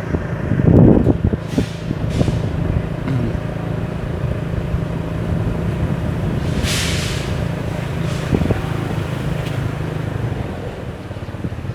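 A motor vehicle engine running steadily with a low hum, with a short hiss about seven seconds in.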